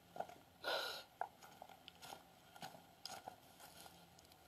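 Faint footsteps through dry grass and fallen leaves: a few irregular soft crunches and rustles, the longest about a second in.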